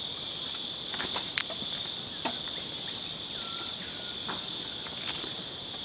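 A steady, high-pitched insect chorus, with a few sharp knocks about a second in and a couple of fainter ones later.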